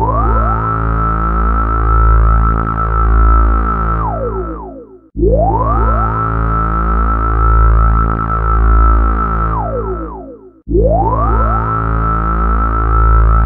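Synthesizer music on a repeating loop of about five seconds. Each pass opens with rising gliding tones that settle into a held high note over a steady deep bass, then falls away before starting again, twice more.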